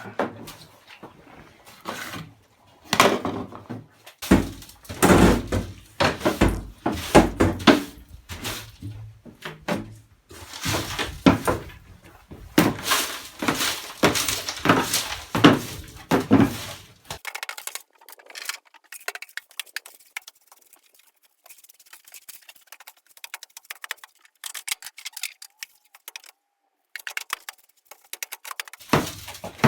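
Irregular knocks, thunks and cracking of dry-rotted wood being broken and cleared out of a hole in a door. After about 17 seconds the knocks stop and only lighter, thinner crackling is left.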